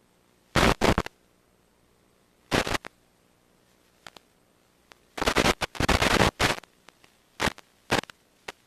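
Several sudden bursts of static hiss breaking into an otherwise silent track, the longest about a second and a half near the middle. This is interference on the drone's analog video link.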